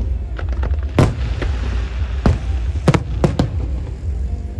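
Aerial fireworks shells bursting: about half a dozen sharp bangs at uneven intervals, one of the loudest about a second in, over a steady low rumble.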